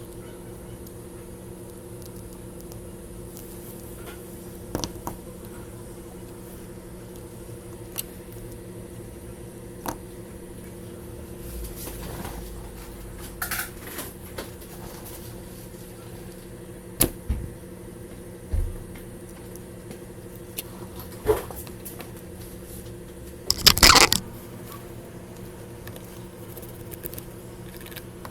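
Steady electrical hum of running bench equipment, with scattered clicks and knocks of tools and parts being handled, and a louder clattering burst lasting about half a second near the end.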